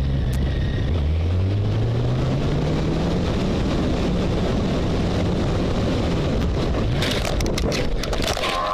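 A motor vehicle's engine speeding up, its pitch rising steadily over the first few seconds and then holding, over loud road and wind noise. Near the end comes a quick run of sharp cracks and knocks.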